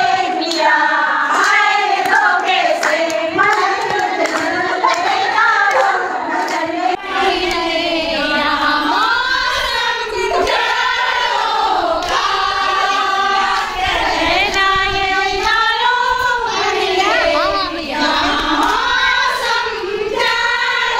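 A group of women singing a song together, clapping their hands along in time.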